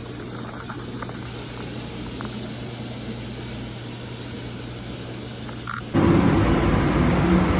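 Steady boiler-room machinery hum and hiss that jumps suddenly much louder about six seconds in, becoming a loud steady mechanical noise with a low drone.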